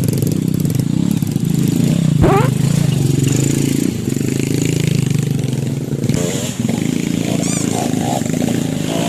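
Dirt bike engine running steadily under load, with a quick rev up about two seconds in.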